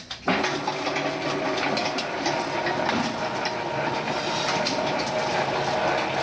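Compost spawning machine switched on just after the start and running steadily as it drives along the mushroom shelving's sideboards, pressing the compost into an even layer.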